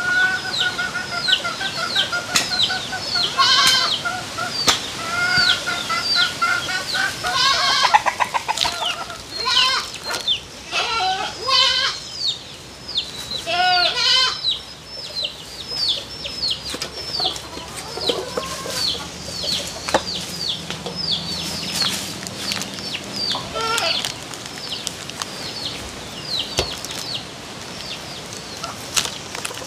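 Chickens clucking, with a steady run of short, high, falling chirps, about two to three a second. Now and then comes a sharp knock of a knife chopping meat on a wooden block.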